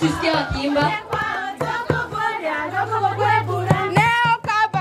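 A group of girls singing a traditional song together over a regular beat.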